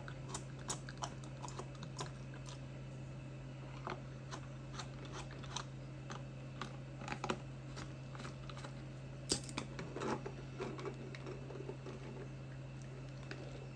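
Scattered light clicks and taps of small screws, tools and the plastic casing of a Bluetooth speaker being handled during disassembly, with one sharper click about nine seconds in, over a steady low hum.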